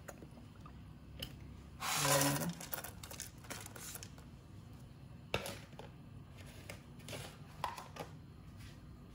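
Green bird's eye chilies going into hot cooking oil in a saucepan: a loud burst of sizzling about two seconds in, then quieter crackling with a few shorter flare-ups.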